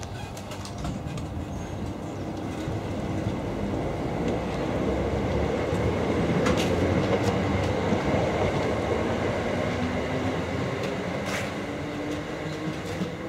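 Electric multiple unit running past on the near track: steady rolling rail noise swells to a peak about halfway, with a few sharp wheel clicks, then fades. Near the end a low rising whine comes in as a Class 317 electric train approaches on the other line.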